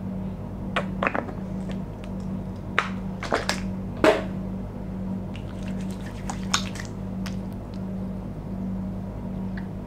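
Sunscreen being dispensed and applied by hand: a handful of short, sudden handling sounds, the strongest about four seconds in, over a steady low hum.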